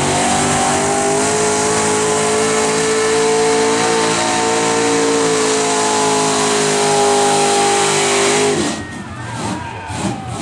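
Chevy mega truck's engine at full throttle pulling a weighted sled, loud and steady, its pitch climbing over the first couple of seconds and then holding. About eight and a half seconds in, the engine sound drops off sharply.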